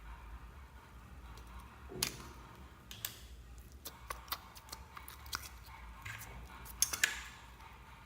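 Slime being squished and mixed by hand, with scattered sharp sticky pops and clicks, a strong cluster near the end.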